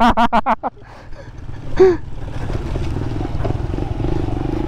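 Aveta RangerMax Explorer 130 moped engine running under way on a muddy dirt trail, quiet at first, then a steady drone that builds slowly from about two seconds in.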